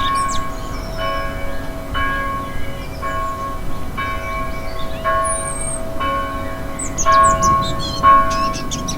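A church bell tolling, struck about once a second, each stroke ringing on into the next. Birds chirp over it, more busily near the end.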